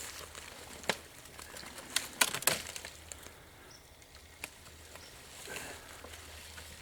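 Dry brush and leaf litter rustling, with scattered sharp twig-like snaps: once about a second in, a cluster around two to two and a half seconds, and one more near four and a half seconds.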